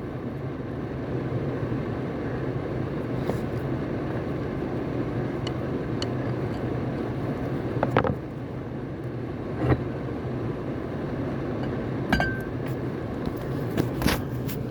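A few sharp metallic clinks and knocks, about four, from tools and parts while the upper unit of a Lofrans Albatross anchor windlass is taken apart, over a steady low hum.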